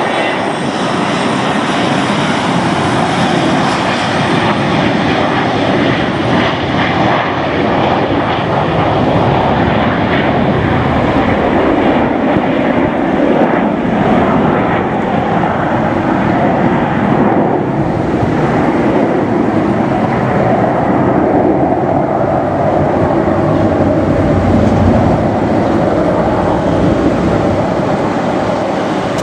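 McDonnell Douglas MD-82's two rear-mounted Pratt & Whitney JT8D turbofans at takeoff thrust as the jet rolls, lifts off and climbs away: a loud, steady jet noise. About two-thirds of the way through, the higher hiss thins out as the aircraft climbs away, leaving a low rumble.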